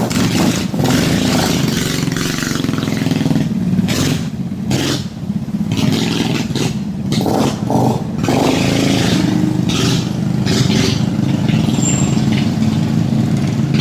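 Mini bike's small engine running steadily, dipping briefly about five seconds in.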